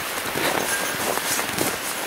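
Footsteps crunching in packed snow, about two steps a second, over a steady hiss.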